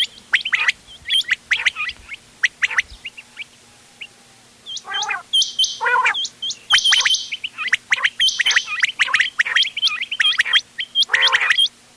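Several quails calling in a mix: quick series of sharp, hooked high chirps, several harsh, buzzy lower notes among them, and a short lull a few seconds in.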